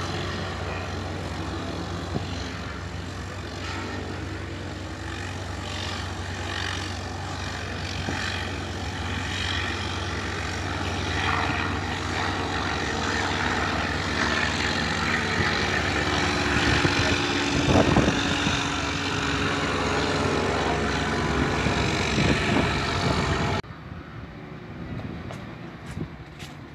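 Propeller engine of a light single-engine aircraft flying past low. It grows louder toward the middle, then the sound drops suddenly to a much quieter background near the end.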